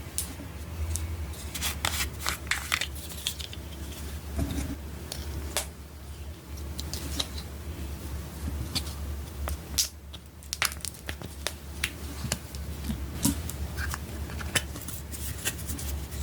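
Hands working slime with makeup mixed in: irregular sticky clicks, crackles and squishes, over a steady low hum.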